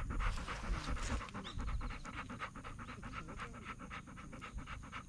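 Golden retriever panting with its mouth open, quick and even, breath after breath.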